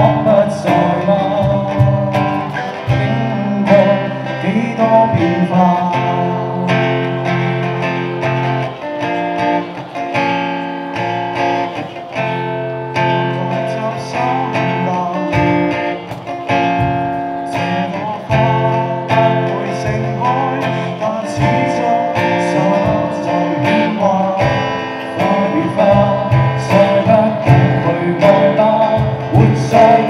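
Live acoustic performance: men singing a song to a strummed acoustic guitar, with a cajon keeping the beat.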